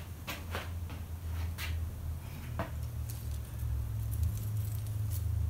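Small scattered clicks and crinkles of black-backed copper foil tape being peeled off its paper backing and pressed around the edge of a piece of glass, over a steady low hum.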